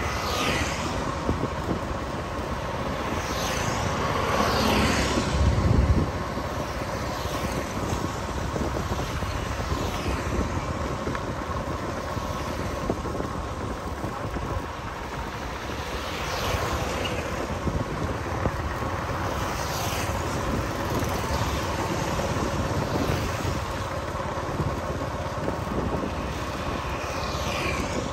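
Steady road and traffic noise from a moving vehicle, with several vehicles passing one after another, each falling in pitch as it goes by. The loudest pass comes about four to six seconds in.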